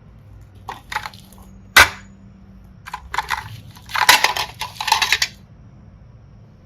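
Close-up slime ASMR handling sounds: bursts of crackling and crunching, with one sharp click about two seconds in and the densest crackling near the end.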